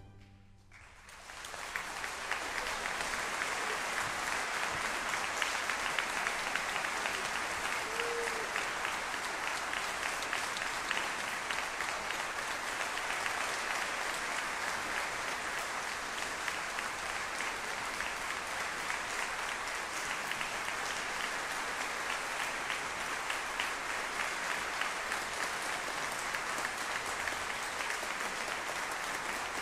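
Audience applause in a concert hall. The orchestra's final chord dies away at the very start, then dense clapping swells within a couple of seconds and continues steadily.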